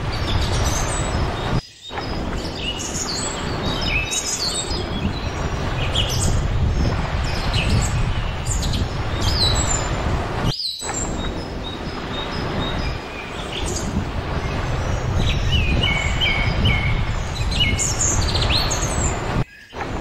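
Many small birds chirping and calling over a steady low rush of wind and gentle surf. The sound cuts out for a moment three times: about 2 seconds in, halfway through, and near the end.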